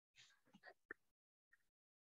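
Near silence, with a few faint brief sounds in the first second, ending in a soft click just under a second in.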